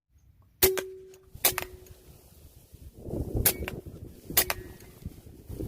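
A series of sharp air rifle shots, about six cracks in a few seconds. Several are followed by a short ringing tone. Wind rumbles on the microphone in between.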